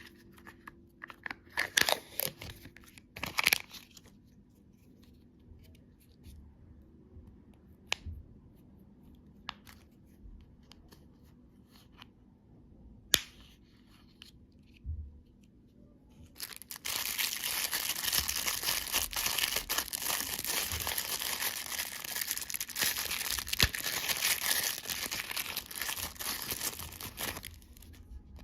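Candy wrappers being torn open and crinkled by hand. Scattered sharp crackles come first; from a little past halfway there is a continuous, louder crinkling rustle that stops shortly before the end.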